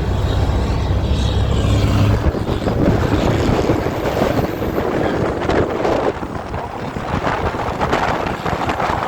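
Ford Cargo truck's diesel engine running loudly: a steady low drone, which after about two seconds turns into a rough, rasping exhaust rumble.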